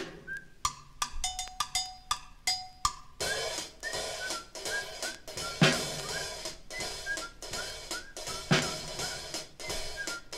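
Drumming on a drum kit, played back from a 1956 vinyl sound record. It begins with a few separate sharp strikes that ring briefly, then from about three seconds in it becomes a busy, continuous beat with a couple of heavier low thumps. Short whistled chirps repeat over the beat.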